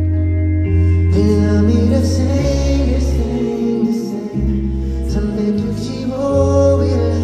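Live music through a concert sound system: a song with deep held bass notes that change every second or two and singing over them, dipping briefly about four seconds in.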